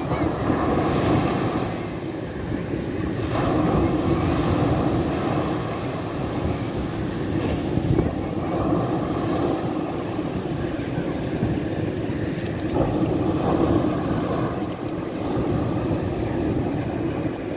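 Mediterranean surf breaking close to shore, a continuous wash of waves that swells louder every few seconds as each wave breaks and runs up the beach.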